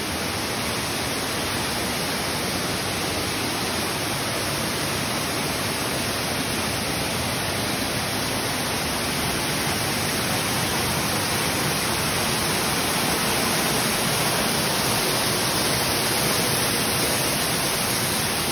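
Steady rushing of a waterfall inside a cave, slowly growing louder.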